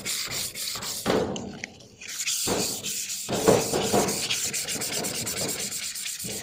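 Sandpaper rubbed by hand over the painted steel top of an old metal drawer cabinet, a trial rub to test the surface after grinding. Quick back-and-forth strokes, with a short pause about two seconds in and faster strokes after it.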